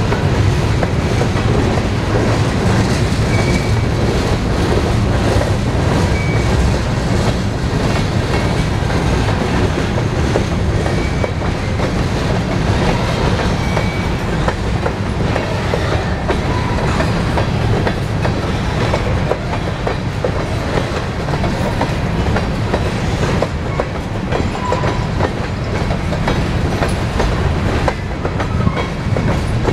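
Empty covered hopper cars of a long freight train rolling past at a steady speed: a continuous low rumble with the clickety-clack of the wheels on the rail.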